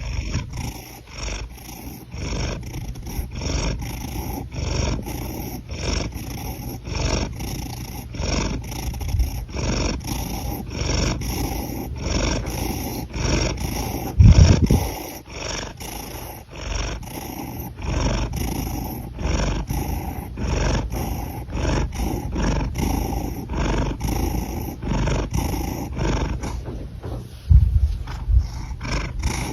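Domestic cat breathing close to the microphone in a steady rhythm of about three breaths every two seconds, over a low rumble. There is a louder low bump about halfway through and another near the end.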